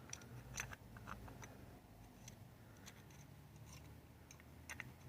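Faint, scattered small clicks and scrapes of the parts of a 1966 Plymouth Valiant windshield wiper switch being handled and fitted together, with near silence between them.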